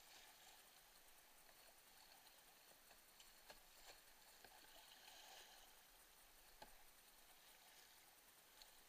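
Faint rushing creek water and paddle splashes from a whitewater kayak running a flooded bedrock creek, with a few short clicks, the sharpest about three and a half seconds, four seconds and six and a half seconds in.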